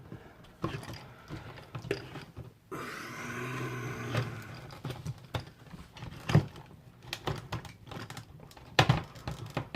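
Irregular plastic clicks and knocks as a fuel pump and sending unit assembly is pushed and worked into the gas tank opening to line it up. A steady hum lasts about a second and a half, starting about three seconds in, and two sharper knocks come near the end.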